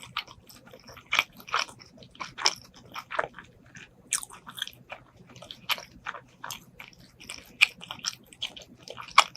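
Close-miked chewing and biting while eating braised pork ribs and rice: irregular sharp mouth clicks, a few a second, with the loudest near the end.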